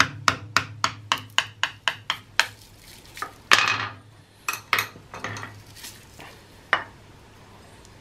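A steel prying tool clicking and scraping against the edge of a super-glued metal workpiece as it is levered off a wooden spoil board: a quick run of sharp clicks, a louder, longer crack about three and a half seconds in, then a few scattered clicks.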